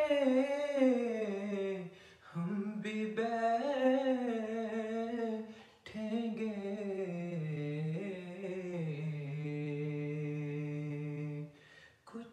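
A man humming a naat melody alone, without words, in three drawn-out phrases; the last one settles into a long steady held note that stops near the end.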